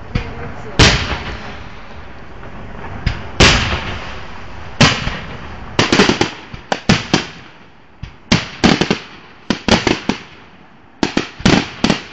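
Aerial firework shells bursting with loud sharp bangs: single bangs a second or two apart at first, then from about six seconds in, quick runs of several bangs close together.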